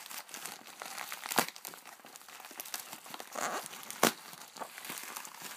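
Packaging being handled and pulled open by hand, crinkling and rustling continuously, with two sharp snaps about a second and a half in and about four seconds in.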